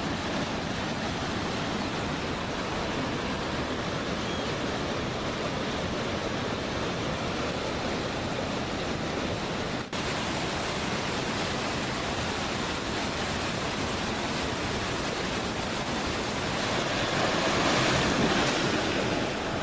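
Steady rush of falling river water at a waterfall cascade. It drops out for an instant about halfway through and swells louder near the end.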